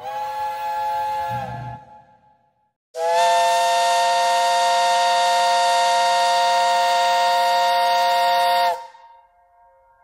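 Three-note chime whistle of LNER A4 steam locomotive No. 60009 'Union of South Africa'. A short blast fades out about two seconds in, then a long steady blast sounds from about three seconds in until near the end.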